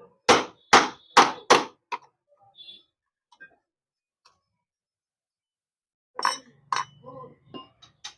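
Metal clinks of a hammer knocking the cut rivets out of a Yamaha FZS clutch housing: four sharp strikes in quick succession, then a few more after a pause near the end.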